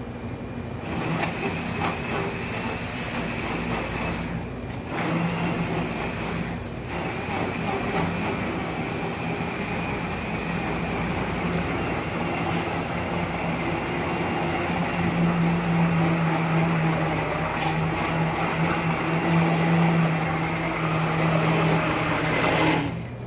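Commercial immersion blender motor running in a tall plastic container, puréeing roasted tomatoes, peppers and onion with toasted bread cubes into a thick sauce. It starts about a second in and runs with a steady hum, dipping briefly twice in the first several seconds, then cuts off just before the end.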